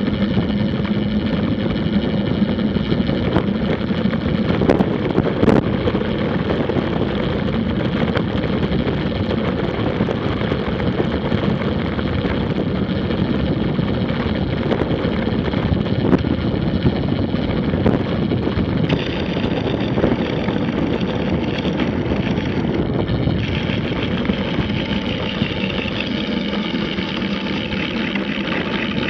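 Wind rushing over a bike-mounted camera's microphone and tyres rolling on tarmac during a fast road-bike descent: a steady rumble with a few knocks from bumps in the road.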